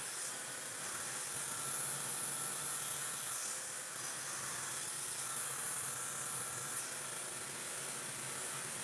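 Breezelle high-speed hair dryer running steadily: a strong hiss of rushing air with a faint high whine from the motor.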